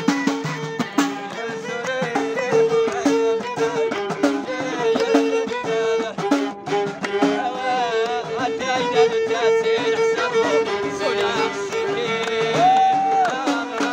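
Moroccan Amazigh folk music: a violin, bowed upright on the knee, plays a repeating, ornamented melody over a steady beat from hand frame drums, one of them a small tambourine with jingles. A long held violin note comes near the end.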